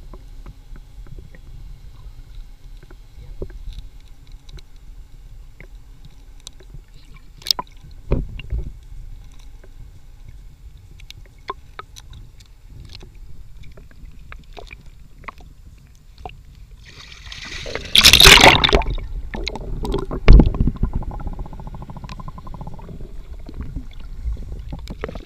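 Water heard underwater through a camera's waterproof housing: a low muffled rumble with scattered clicks and knocks, then a loud rush of splashing and bubbles about two-thirds of the way through, followed by a sharp knock.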